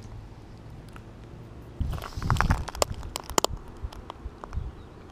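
Shells and pebbles crunching underfoot with clothing rustle and knocks as someone crouches on a shingle shore, loudest and busiest from about two to three and a half seconds in, with a run of sharp clicks.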